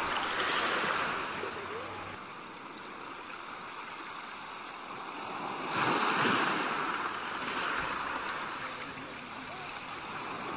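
Sea surf washing in. The noise swells briefly at the start, then again from about six seconds in for a couple of seconds.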